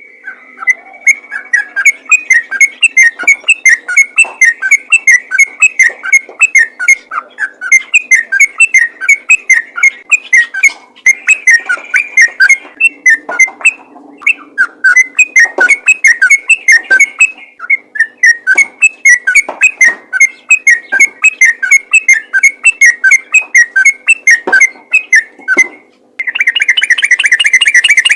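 Yellow-vented bulbul (trucukan) singing hard in a fast run of repeated, whistled chirps with only brief pauses. Near the end it switches to a denser, continuous rapid trill.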